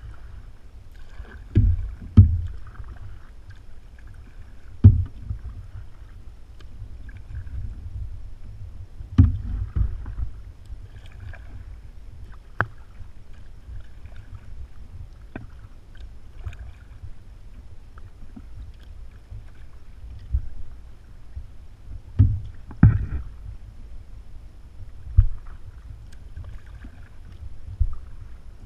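Plastic sit-on-top kayak being paddled over calm water: irregular low thumps and knocks through the hull, often in pairs, over faint splashing and lapping water.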